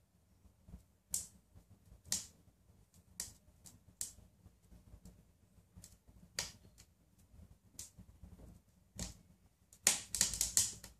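Burning logs crackling and popping in a Dik Geurts Ivar wood stove: sharp, irregular pops about once a second, with a quick flurry of them near the end.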